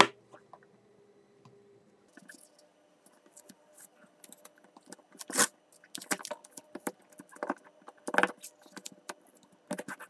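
Small rechargeable battery cells clicking as they are set down and handled, then tape crackling and rustling as it is wrapped around the row of cells, with the loudest crackles about five and eight seconds in.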